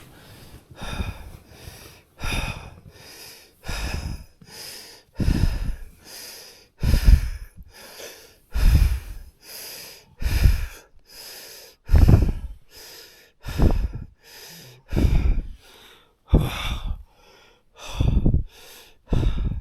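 A man breathing rapidly and hard while lying at rest, each in-and-out audible, with a deep breath about every second and a half. It is the laboured breathing of high altitude without supplemental oxygen, harder than he breathes running at marathon pace.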